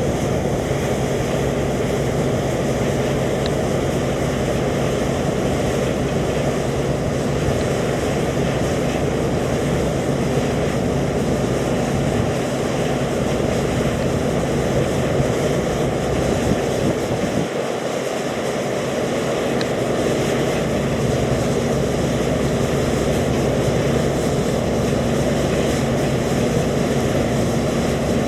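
Combine harvester working in grain: a steady, loud engine drone under the even rush of the threshing machinery, the low end easing briefly about two-thirds of the way through.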